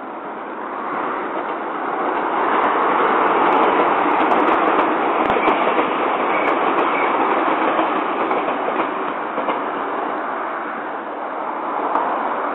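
JR Kyushu 885 series electric express train running past at speed, a steady rush of wheel and running noise mixed with car traffic on the adjacent road. It is loudest from about two to seven seconds in, then fades as the train draws away.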